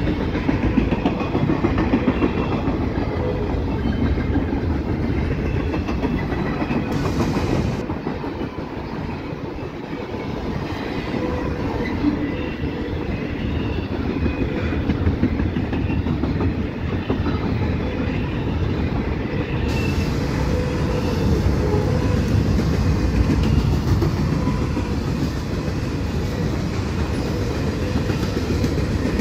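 Container cars of a long freight train rolling past at speed: a steady rumble and clatter of steel wheels over the rail joints.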